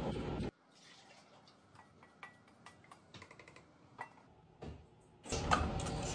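Faint taps and ticks of a spatula against a stainless steel mixing bowl as ice cream mixture is scraped into an ice cream maker's frozen bowl, with a slightly louder knock near the end of it. A steady noise with clicks in it runs briefly at the start and comes back about five seconds in.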